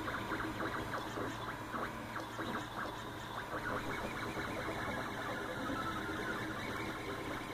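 3D printer's stepper motors buzzing and chattering through a rapid series of short moves as it prints, over a steady low hum.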